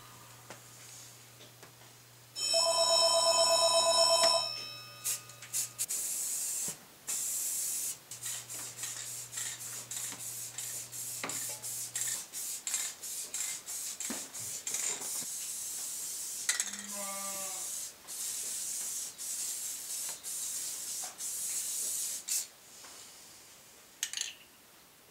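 Spray paint hissing in many short bursts as the freshly rebuilt drive shafts are painted. A brief ring like a telephone bell, the loudest sound, comes about two and a half seconds in.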